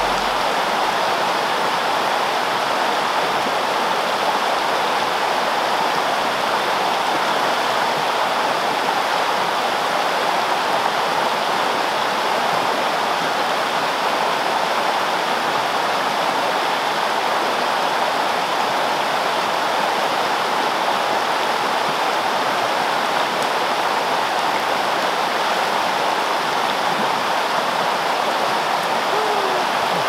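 Steady rushing of a shallow, rocky creek flowing fast over riffles and around stones.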